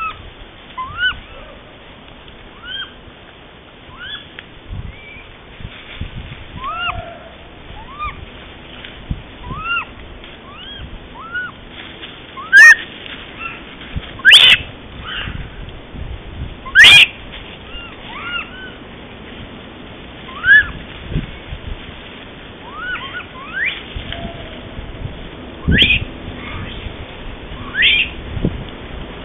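Japanese macaques giving repeated short coo calls, rising-and-falling whistle-like notes about once a second, with several much louder calls around the middle and near the end.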